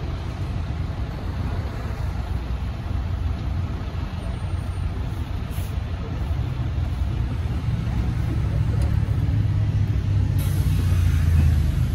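A steady low rumble that builds toward the end, with faint voices underneath.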